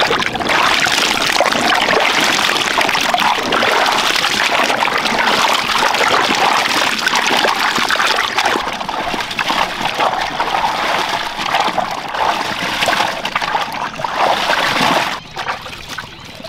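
Water splashing as hands scrub and wash a basin full of vegetables (eggplants, chillies, capsicums, cauliflower). The splashing stops suddenly about fifteen seconds in, leaving only faint sounds.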